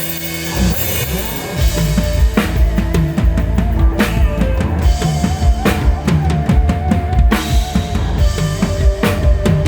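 Rock band's drum kit played loud at a live sound check: quick, steady kick-drum and snare hits with cymbals, building in over the first second or two. A held note from another band instrument sounds over the drums.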